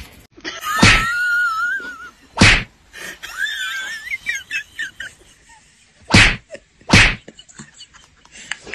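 Cats squabbling: a wavering yowl about a second in and a shorter one a few seconds later, with four sharp hisses.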